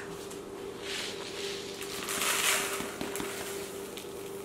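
Dry oats poured from a cardboard canister into a plastic bowl, a soft hissing patter in two spells, the stronger one about two seconds in, with a few small clicks.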